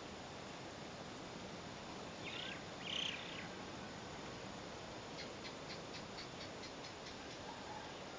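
Birds calling at daybreak over a steady background hiss: two short, louder calls about two and three seconds in, then a quick run of high thin notes, about six a second, for roughly two seconds.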